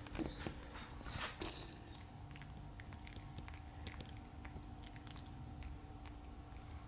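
Sheepadoodle puppies play-wrestling, mouthing and chewing on each other: small wet mouth clicks and scuffling on carpet, with a few short high squeaks in the first second and a half.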